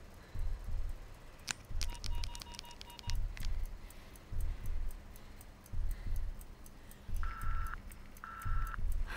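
Background music with a steady low beat and even ticking over it, with a quick run of electronic beeps about two seconds in and two short beeps near the end.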